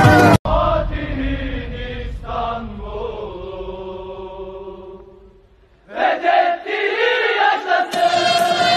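Voices chanting a slow, held song line that fades almost to nothing about five and a half seconds in. The chanting comes back louder about a second later.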